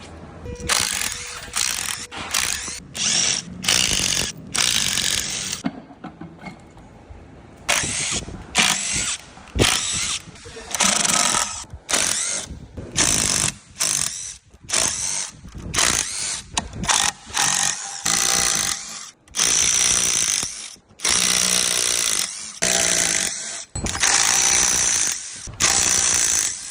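Impact wrench running in repeated short bursts of a second or so, with a high whine in each burst, undoing fasteners while a Tesla Model S is being dismantled for a bearing replacement.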